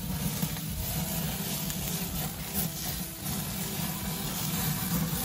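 Steady low rumble with a hiss from an open charcoal kamado fire burning under chicken gyro meat turning on a rotisserie spit.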